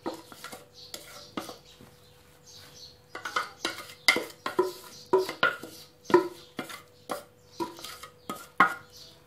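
Clatter of a metal food-chopper bowl being tapped and scraped out over a frying pan, emptying chopped red pepper. Knocks with a short ring, few in the first seconds, then about two a second.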